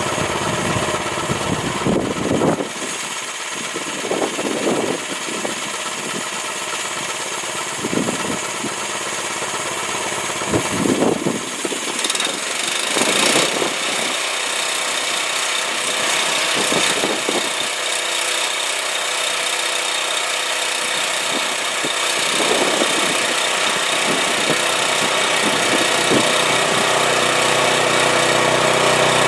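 Home-built band sawmill's engine running steadily, with a few brief low knocks along the way.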